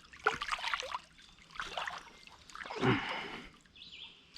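Water splashing and trickling in about three irregular bursts, with quieter water sounds between them.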